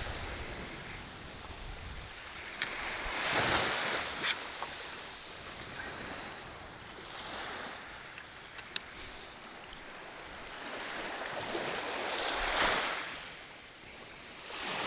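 Small waves washing up a sandy beach, each swelling and fading about every four seconds. A few sharp clicks come in between, the clearest about nine seconds in.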